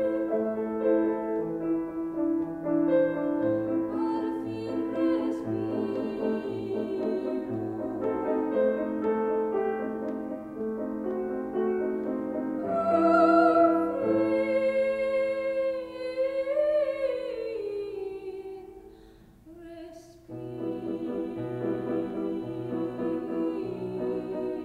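A classical female voice sings an Italian aria in operatic style, with vibrato, over a grand piano accompaniment of repeated low notes. About two-thirds of the way through, a high phrase slides down and dies away, followed by a brief hush, and then the piano and singing start again.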